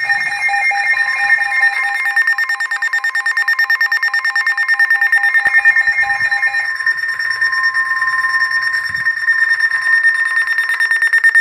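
Weather alert radio sounding its alarm for an incoming severe thunderstorm warning: a loud, rapid electronic pulsing of several high tones. The lowest of the tones drops out about two-thirds of the way through.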